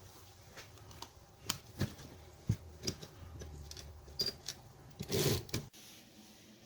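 Royal No. 5 manual typewriter mechanism clicking: scattered, irregular sharp clicks and knocks, with a longer, louder burst about five seconds in that cuts off suddenly.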